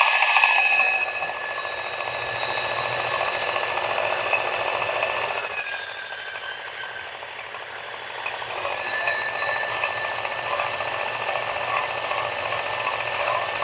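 Work Sharp belt knife sharpener's motor running with a steady whine. About five seconds in, a steel blade is drawn across the abrasive belt for about three seconds, giving a loud high grinding hiss while the motor's pitch dips slightly under the load. This is a final stroke on one side of the edge to transfer the burr.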